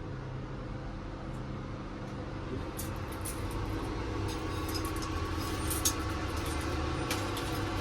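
A steady low mechanical drone holding a few fixed tones, with a few light clicks and ticks over it.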